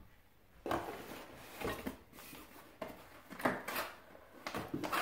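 Packaging of a boxed toy RC plane being handled: irregular clicks, knocks and rustles, about a dozen short sounds.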